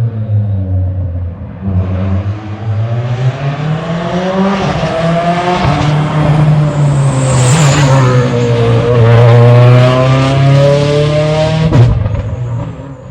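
Hyundai i20 N Rally1 rally car's 1.6-litre turbocharged four-cylinder engine revving hard, its pitch climbing and dropping with each gear change as the car approaches and passes. It is loudest around the middle, gives one sharp crack near the end, then fades away.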